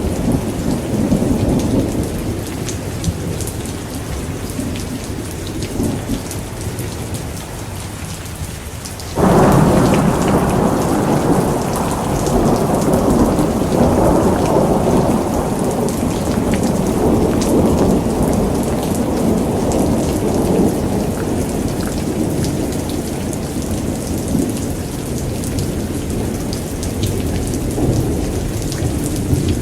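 Thunderstorm: steady rain with rumbling thunder. About nine seconds in, a sudden loud thunderclap breaks in and rolls on as a long rumble that slowly dies away.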